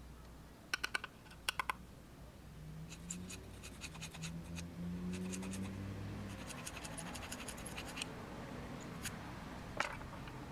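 Small metal pick scraping brake dust and rust out of a car's brake caliper bracket, in short bursts of rapid scratching clicks over a faint low hum.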